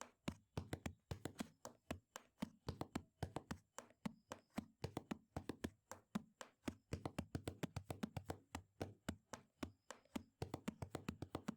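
Oil pastel tapping and scratching on paper in quick, short strokes, several a second in uneven clusters.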